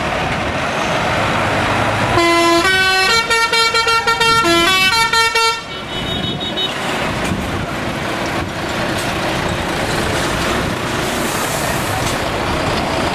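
Heavy tractor units pulling away past, their diesel engines running, with a musical air horn sounding about two seconds in. The horn plays a short tune of stepped notes, some quickly repeated, for about three seconds.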